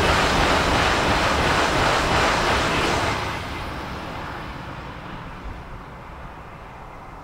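Shinkansen bullet train passing at high speed: a loud rushing roar for the first three seconds or so, then dying away steadily as the train recedes.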